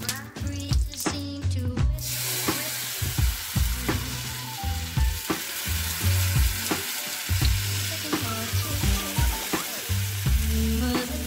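Ragi dosa batter sizzling on a hot griddle, the sizzle starting about two seconds in as the batter meets the pan, then the batter spread around with a spoon. Background music with a steady beat plays underneath.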